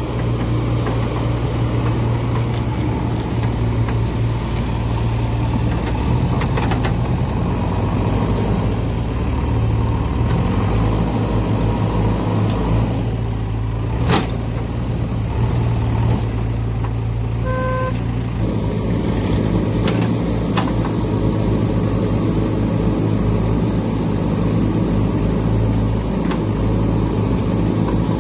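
JCB 3DX backhoe loader's diesel engine running steadily while the backhoe digs and loads soil. A single sharp knock comes about halfway through, and a short beep a few seconds later.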